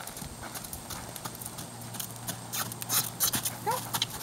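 A horse's hooves walking on a sand arena: a run of soft footfalls with crisper crunches, loudest about three seconds in. Two short chirp-like sounds come near the end.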